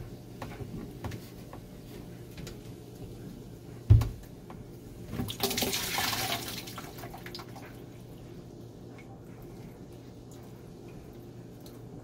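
Water pouring from a hose just pulled off a garbage disposal and splashing into a plastic bucket for about two seconds, following a single sharp knock about four seconds in.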